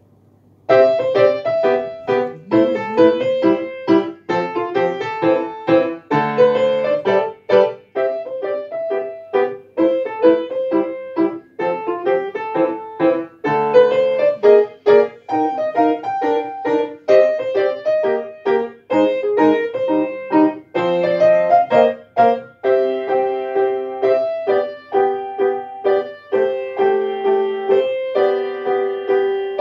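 Solo Kawai grand piano being played: a brisk run of short, separated notes and chords that starts just under a second in and carries on without a break.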